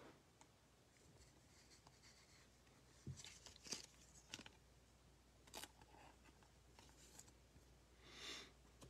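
Near silence with faint clicks and rustles of trading cards being handled and slid against one another: a few short ones around the middle and a soft swish near the end.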